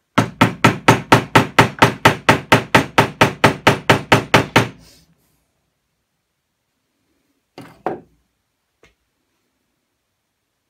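Nylon-faced mallet tapping rapidly and evenly on wood, about twenty blows at roughly four to five a second, stopping after about four and a half seconds. A couple of lighter wooden knocks follow a few seconds later.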